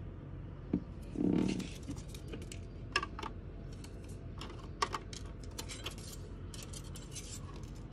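Steel tape measure being handled: a short rattle and knock about a second in as the tape is let go and retracts, then scattered sharp metallic clicks, with a denser run in the second half as the blade is drawn out again.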